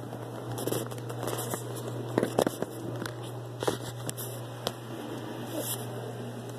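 Household handling noises: scattered clicks and knocks, the loudest cluster about two seconds in, with a few brief scraping sounds over a steady low hum.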